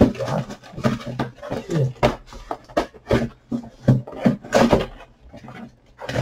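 Plastic and cardboard packaging of a boxed action figure crinkling and tearing as hands work it open, in irregular short crackles and rips.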